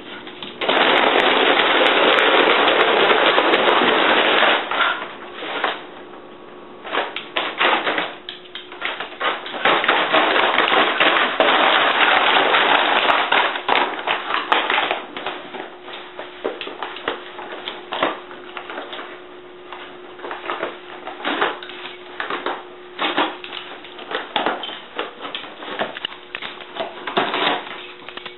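Jack Russell terrier pawing and tearing at a brown paper grocery bag: loud rustling and crumpling of paper in two long bouts, with scattered crackles and small rips in between.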